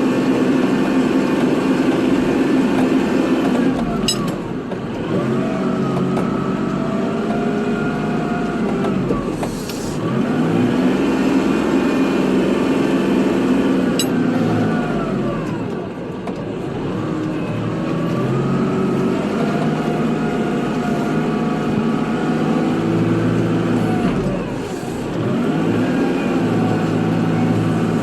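Kubota tractor running steadily while plowing snow, its pitch dipping and climbing back four times.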